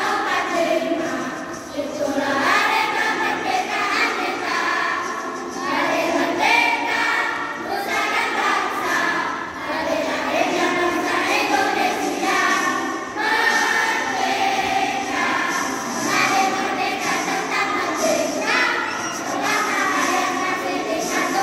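Children's choir of boys and girls singing together in sustained phrases, with short breaks between lines.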